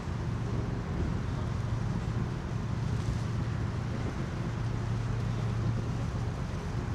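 Steady low drone of a watercraft's engine under way on a river, with wind buffeting the microphone.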